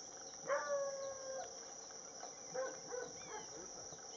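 Domestic chickens heard faintly over steady insect chirring: one long held call, a rooster's crow, about half a second in, then a few short clucks.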